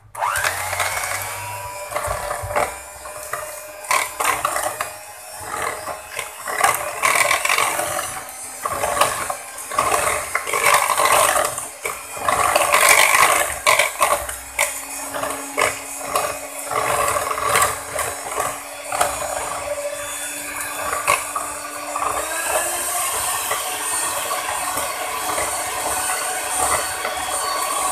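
Electric hand mixer whipping eggs and sugar in a plastic bowl, its motor whining and its beaters rattling and knocking against the bowl. About three-quarters of the way through, the motor's pitch rises as the speed is turned up from low to high.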